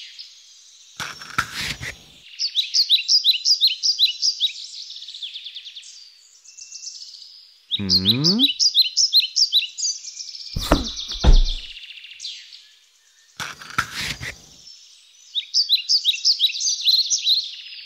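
Birdsong: bursts of quick, repeated high chirps. These are broken by a few short noisy sweeps and thuds, and a quick falling tone about eight seconds in.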